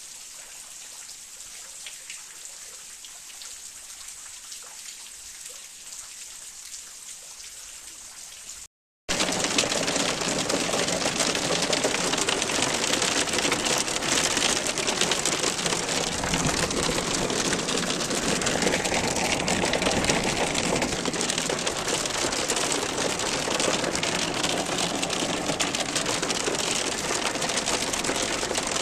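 Hail falling steadily, a dense even hiss. After a short break about nine seconds in, it is much louder: hail hitting a car's roof and windshield, heard from inside the cabin as a dense roar of rapid impacts.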